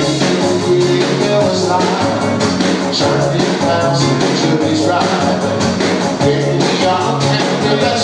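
Live dub-reggae band playing amplified through a PA: a steady drum beat and a repeating bass line, with electric guitar, keyboards and a vocal over the top.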